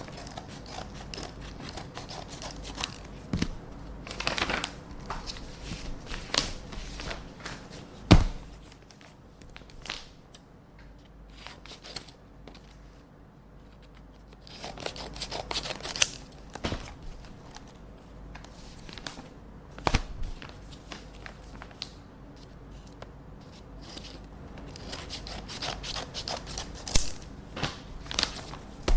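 Scissors snipping open paper envelopes, in irregular runs of short crisp cuts with paper rustling and scraping between them. A sharp knock comes about eight seconds in, with a lighter one about twenty seconds in.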